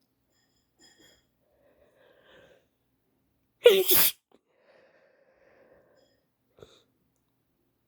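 A woman with a head cold sneezes once, loudly, a little under halfway through. Quiet breathing comes before and after it.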